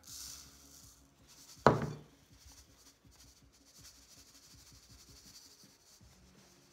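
Ground walnut shells poured from a mug into a plastic funnel, a brief hissing rattle of granules, then one sharp knock about a second and a half in. After that comes faint trickling and rustling as the shells work their way down through the funnel into the fabric pin cushion.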